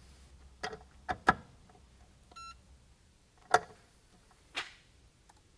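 Capri torque screwdriver being run up to its setting on a CDI digital torque tester: about five sharp clicks, three close together near the start and two more later on. A short electronic beep sounds about two and a half seconds in.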